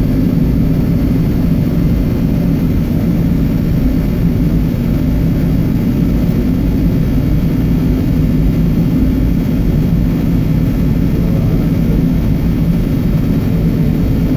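Loud, steady machinery drone, a low hum that holds unchanged throughout.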